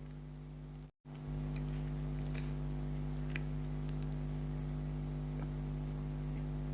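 Faint chewing and mouth clicks of someone eating Indian sweets, over a steady low electrical hum. The sound cuts out completely for a moment about a second in, then resumes slightly louder.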